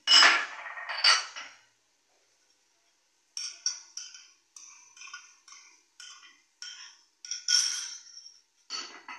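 Two loud knocks of kitchenware, then a run of short clinks, about two a second, as a spoon scrapes and taps ginger-garlic paste out of a small ceramic bowl into an aluminium pressure cooker.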